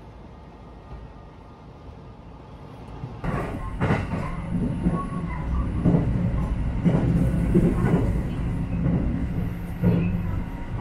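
Sunrise Express sleeper train heard from inside the car as it pulls away. A low running rumble builds about three seconds in, with regular knocks about once a second.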